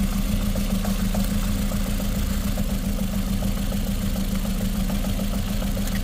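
2012 Ford Figo's four-cylinder petrol engine idling steadily with a misfire, with light irregular ticking over the hum. One fuel injector's connector is unplugged and the idle does not change, so that cylinder is not the one misfiring.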